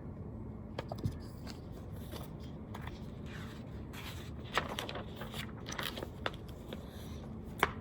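Faint paper rustling and a few light clicks scattered through a quiet pause: a picture book's pages being handled and turned.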